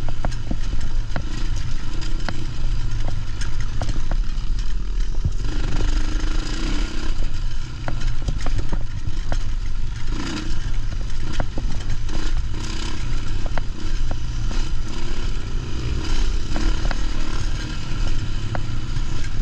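Dirt bike engine running continuously as the bike rides rough singletrack, its pitch rising and falling with the throttle. The rhythm is broken by frequent sharp ticks and clatter from stones and the bike's chassis, heard from a mount on the bike itself.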